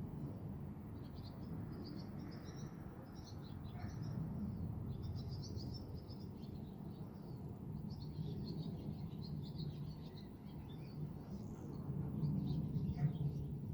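Birds chirping and twittering in quick runs of short high notes over a steady low background rumble.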